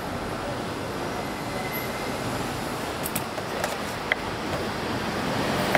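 Steady, even noise of a busy street-food stall, with a few short, light clicks about three to four seconds in.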